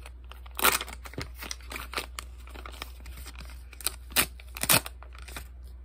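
Hands tearing and crinkling open a wrapped package, a run of sharp crackles, loudest about a second in and twice more between four and five seconds in.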